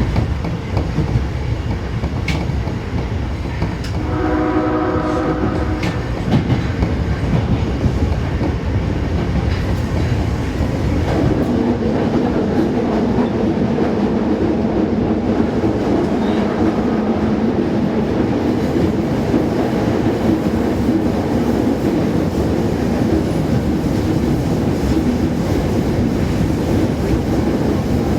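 Osaka Metro 22 series subway train running with steady wheel and running noise. About four seconds in, its horn sounds once for about two seconds; this set's horn is known for its odd tone. From about eleven seconds on, a steadier pitched hum joins the running noise.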